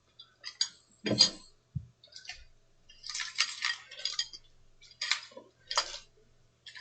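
Small hand tools and hard parts clinking and clattering on a workbench as they are rummaged through and picked up: scattered irregular clicks, busiest a few seconds in.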